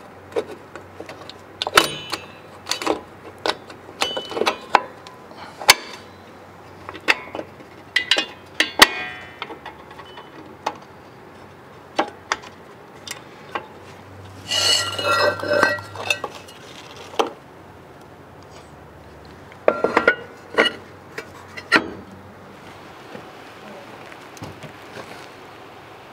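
Metal hand tools and parts clinking and tapping in separate strikes, some ringing briefly. About 15 seconds in comes a denser metallic rattle lasting a couple of seconds.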